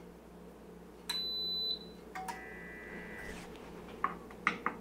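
A single high electronic beep about a second in, then about a second of steady electronic whine, and a few light clicks near the end: the Bluetti EB3A power station overloading and shutting off as it tries to run a 700-watt Instant Pot on its 600-watt inverter with power-lift mode off.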